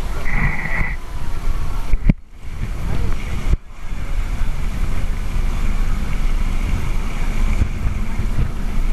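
Wind buffeting the microphone and water rushing past a moving boat close to the waves, a steady heavy rumble. Two sharp knocks, about two and three and a half seconds in, are each followed by a brief muffled dip, and a short high tone sounds near the start.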